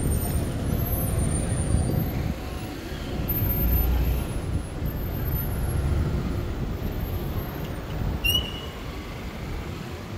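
Steady low rumble of street traffic, with a brief high squeak about eight seconds in.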